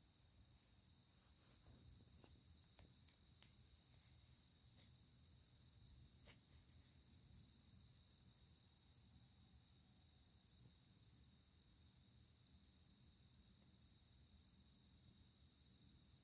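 Faint steady chorus of crickets, one continuous high-pitched trill, with a few faint ticks in the first several seconds.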